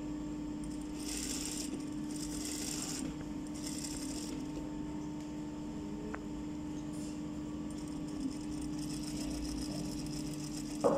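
Industrial flatbed sewing machine stitching fabric at a steady speed, giving a continuous, even hum.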